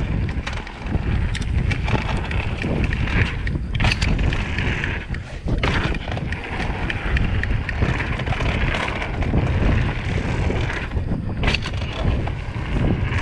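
Mountain bike riding fast down a dirt trail: wind buffeting the microphone over tyres rolling on dirt, with scattered sharp knocks and rattles from the bike over bumps.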